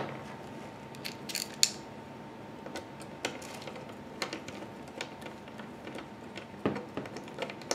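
Scattered small clicks and ticks of a hand screwdriver: its bit being changed and a small screw driven into the Mac mini's internal frame, with a few clicks bunched together about a second in and single ones about every second after.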